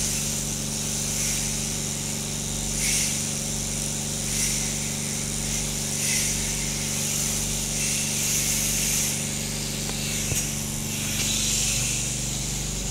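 Electric sheep-shearing handpieces running with a steady motor hum, and a hiss that swells every second or two as the cutters pass through the fleece.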